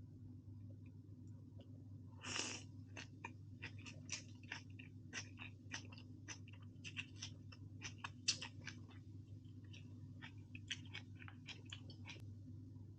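Close-up chewing: many small sharp clicks and crunches of food being chewed, with one longer, louder noise a little over two seconds in. A low steady hum runs underneath.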